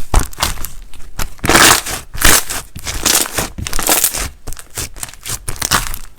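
Something brittle being crushed: a rapid, irregular run of crisp crunches and crackles, with a few longer, louder crunches in the middle.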